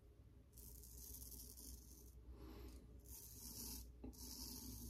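Straight razor scraping through stubble on a lathered cheek: about four short, faint, hissing strokes, one after another.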